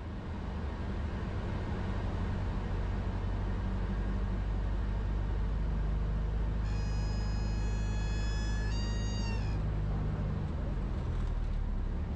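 Cessna 152's four-cylinder engine and propeller droning in the cabin. About seven seconds in, the stall warning horn sounds a steady high wail for roughly three seconds, its pitch sagging just before it stops: the wing is at the stall.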